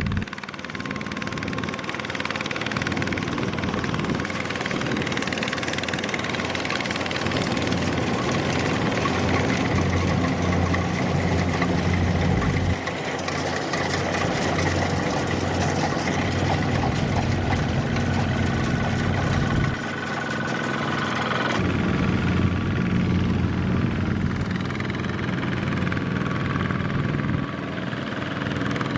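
Single-cylinder diesel engine of a Kubota mini walking tractor running under load in deep mud, a loud, steady chugging whose pitch shifts about 13 and 20 seconds in as the throttle changes.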